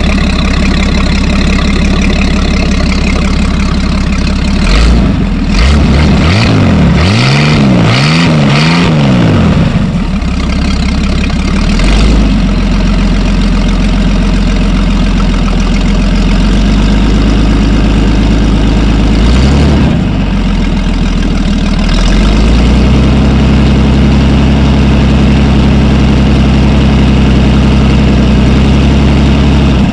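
Chevrolet 250 straight-six boat engine idling. About five seconds in it is revved up and down three or four times in quick succession, it is blipped once more near twenty seconds, and it then settles into a steady idle.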